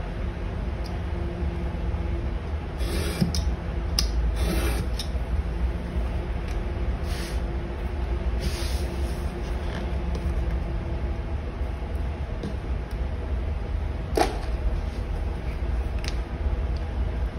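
Craft knife scraping through leather along a steel ruler, with the ruler and leather being shifted and set down on a cutting mat in scattered short scrapes and taps. Under them runs a steady low rumble with a faint hum.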